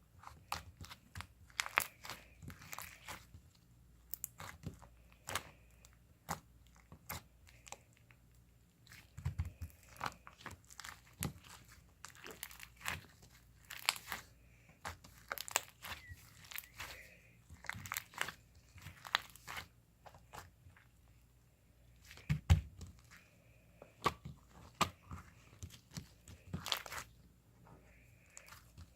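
Irregular crinkling and crunching handling sounds: many short sharp clicks at an uneven pace, with two louder thumps, about a third of the way in and again about three quarters of the way in.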